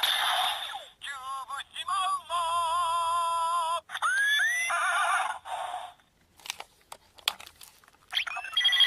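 Zyuoh Changer Final toy's speaker playing animal sound effects: warbling, wavering calls and a couple of rising glides in the first half. A few sharp clicks of its buttons follow, and another sound effect starts near the end.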